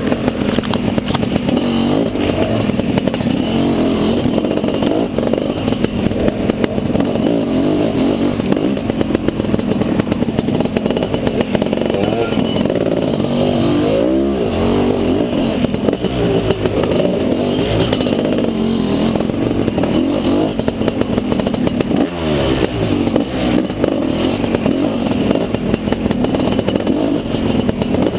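Dirt bike engine running hard under load, its pitch rising and falling over and over as the throttle is worked, over a steady rush of noise.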